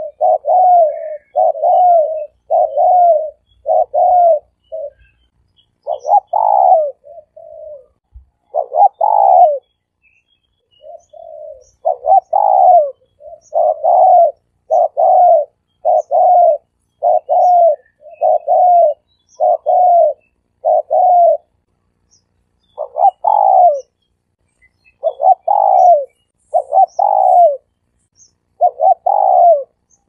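Spotted dove cooing: a long run of short, repeated coos, about one to two a second, with a few brief pauses. This is the dove's 'three-coo' call, played as a decoy call to draw doves in.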